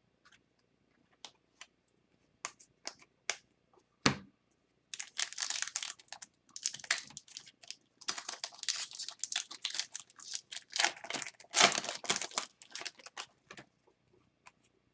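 A few light clicks and taps of cards being handled, then the foil wrapper of an Upper Deck hockey card pack crinkling and tearing for several seconds, loudest near the end.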